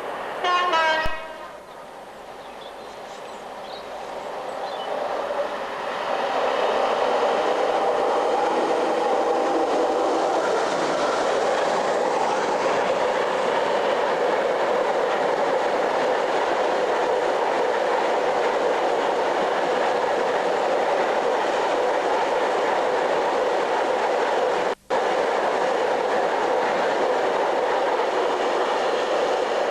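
A train horn sounds briefly at the very start, its pitch falling, then a diesel-hauled freight train approaches and passes at length, the locomotive's engine note giving way to the steady rumble and clatter of the wagons. A brief dropout breaks the sound near the end.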